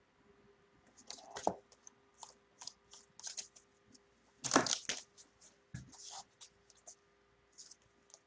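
Trading cards and their pack wrapper being handled: a run of short sliding and crinkling rustles, the loudest about four and a half seconds in.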